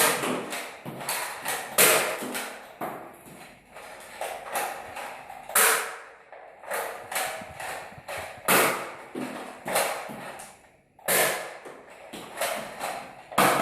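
Toy Nerf blaster being primed and fired over and over: a string of sharp clacks and thuds, with a loud one every two or three seconds and smaller clicks between.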